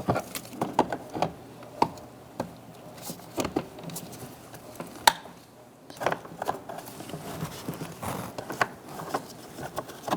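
Irregular light clicks and taps of plastic wiring connectors and door trim being handled and plugged in on a car door panel, with one sharper click about five seconds in.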